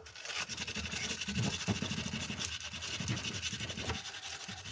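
Steady scratching and rubbing of a small piece of wood being worked and fitted against a wooden walking stick, with many fine ticks throughout.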